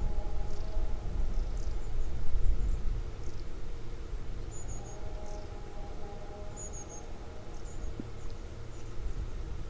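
Outdoor field ambience: a low rumble, heaviest in the first three seconds, with scattered faint, short, high chirps of small birds. A faint distant hum comes and goes twice.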